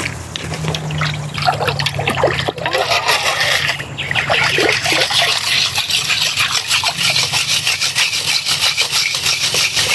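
Water trickling and splashing, with many quick small splashes and gurgles that get busier after about three seconds.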